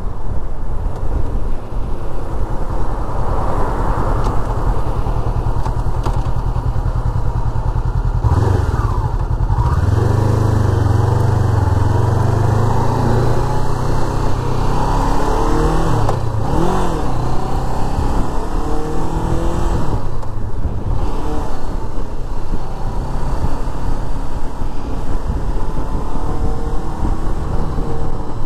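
Sport motorcycle being ridden along a road: heavy wind rumble on the microphone over the running engine. The engine note rises and falls a few times around the middle as the bike changes speed.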